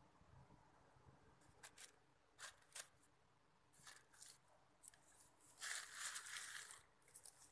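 Faint crinkling of plastic sheeting and sacks on the floor: a few short crackles, then a longer rustle about six seconds in as the sack and a kitten shift on the plastic.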